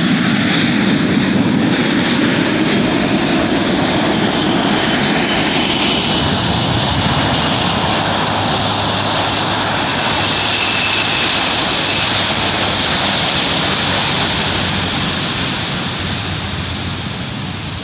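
Jet engines of a Boeing 787 airliner landing and rolling out on the runway: a loud, steady rushing roar with a faint high whine that falls in pitch about midway, easing off slightly near the end.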